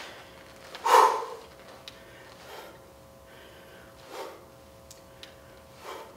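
A man breathing out hard through nose and mouth in time with dumbbell rows, four short puffs spaced about a second and a half apart; the first, about a second in, is the loudest. A couple of faint ticks come in between.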